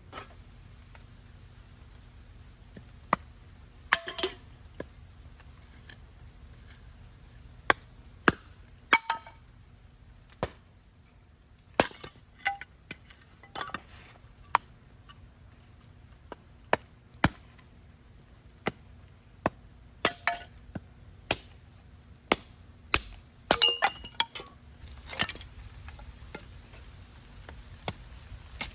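Scattered sharp knocks and clinks of utensils and camp cookware being handled, irregularly spaced, a few with a brief ringing tone.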